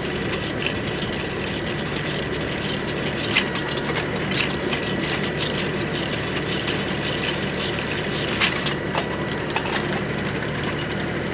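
Tractor engine running steadily while it drives a three-point post-hole auger boring into hard, dry clay ground, with a thin steady whine and a few sharp clicks and cracks from the digging.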